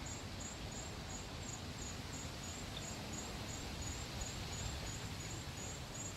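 Insects chirping in a steady, high-pitched rhythm of about three chirps a second over a steady low rumble of outdoor background noise.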